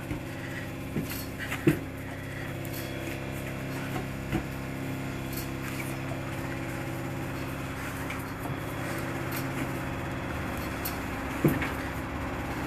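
A steady low machine hum, with a few soft knocks as butter-rich shortbread dough is pressed and kneaded by hand on a worktop, the loudest near the start and near the end.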